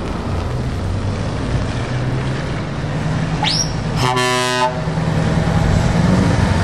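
Scania R730 V8 truck engine running with a steady low drone as the tractor unit approaches. About four seconds in, a truck air horn gives one short blast, just after a brief rising whistle.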